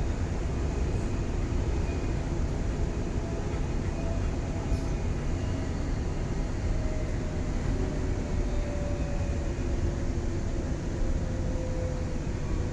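Cabin noise inside a Queensland Rail NGR electric multiple unit running at speed: a steady low rumble of wheels on track, with a faint whine that slowly falls in pitch.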